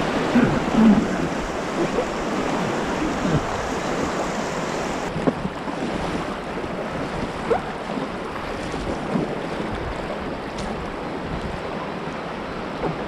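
Steady rush of river rapids.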